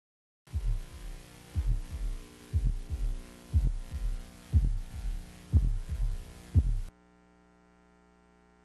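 Heartbeat sound effect: seven low double thumps about a second apart over a steady hum, stopping about seven seconds in.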